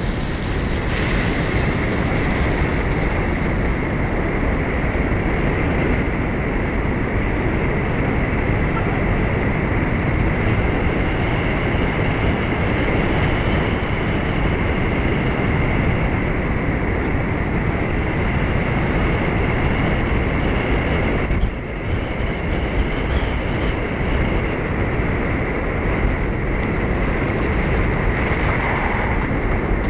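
Steady road and wind noise of a moving car, an even rumble with a faint steady whine on top. It drops briefly about two thirds of the way through.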